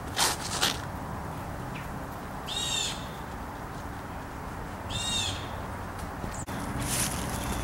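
A bird calls twice, a short high arched cry each time, about two and a half seconds apart. At the very start there are two brief loud noisy bursts as a player makes a disc golf throw.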